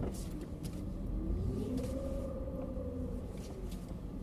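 2012 Jeep Liberty's 3.7-litre V6 revving up and easing back down twice over a steady low rumble as the four-wheel-drive SUV is driven in reverse to climb out of slick mud.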